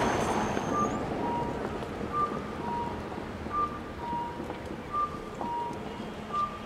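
A repeating two-tone electronic beep, a higher tone followed by a lower one, the pair recurring about every one and a half seconds over steady street noise.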